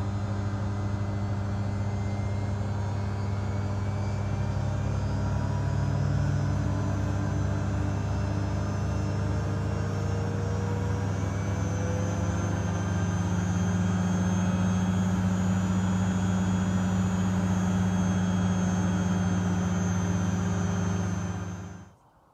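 Miele W2573 front-loading washing machine in its first intermediate spin: steady motor hum with a faint high whine from the spinning drum. About a second before the end the sound falls away quickly as the spin stops.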